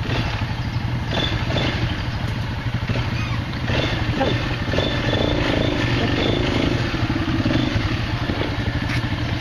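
Quad bike engine running with a steady low note as the quad crawls over rocks and roots.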